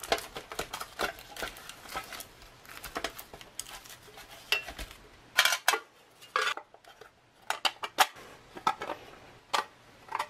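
Thin tin-plate ration can and its lid scraping and clicking against each other and a stainless steel tray as the lid is worked as a lever to pry a wrapped chocolate bar out of the can. A run of small clicks and scrapes, with a few louder metallic clanks in the second half.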